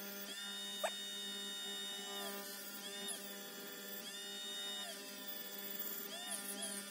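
Rotary tool fitted with a rubber-bristle polishing brush, running steadily and quietly, its pitch dipping briefly several times. There is a short click about a second in.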